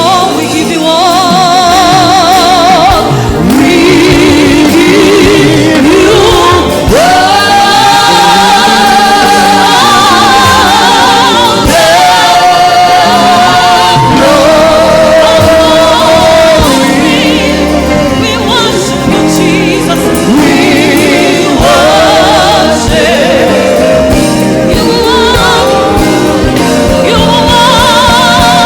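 Gospel choir singing, several voices with vibrato and long held notes.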